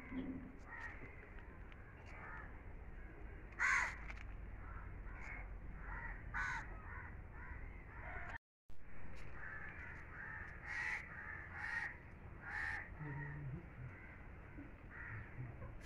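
Crows cawing, a series of short calls scattered through, the loudest about four seconds in, over a faint steady outdoor background.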